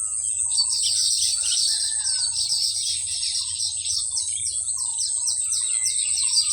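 Weaver birds chattering in a rapid run of high notes, starting about half a second in, over a steady high-pitched insect drone.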